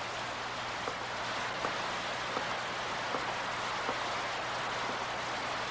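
Steady rain falling, an even hiss with faint ticks of drips at fairly regular intervals.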